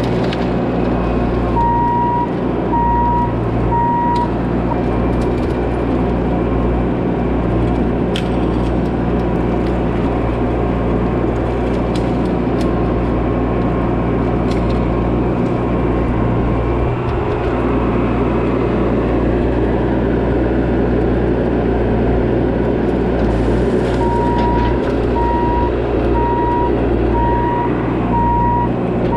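Bobcat E42 mini excavator's diesel engine running steadily under work. Its travel alarm beeps about twice a second for a couple of seconds near the start and again for several seconds near the end.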